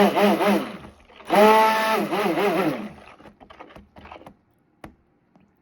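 Stick blender run in two short bursts through raw soap batter, its motor whine wavering in pitch as it works the mixture up to a light trace. A few light taps follow.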